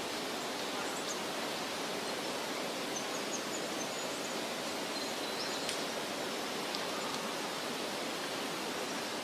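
Steady outdoor ambient hiss, an even wash with no machine sound in it, with a few faint high bird chirps about three seconds in and again around six seconds.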